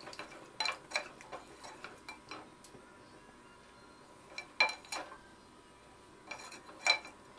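Wooden spatula stirring chicken curry in a metal saucepan, clicking and knocking against the pot in short bursts, loudest about two thirds of the way in and near the end.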